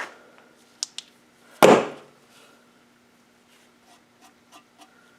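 Handling of small plastic lawn-mower engine parts: a couple of sharp clicks, one louder knock about a second and a half in, then a run of light ticks, over a faint steady hum.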